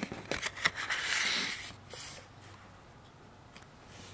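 A stack of Topps baseball cards being handled: a few quick card snaps, then a short papery swish of cards sliding against each other about a second in.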